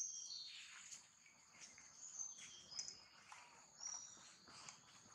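Faint outdoor ambience: a steady high insect drone, with scattered short high chirps over it.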